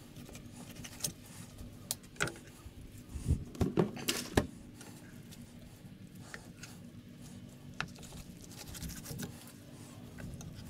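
Fillet knife and catfish meat knocking and clicking against a plastic cutting board as the fish is cut up. The knocks are scattered, with a louder cluster about three to four and a half seconds in, over a faint steady hum.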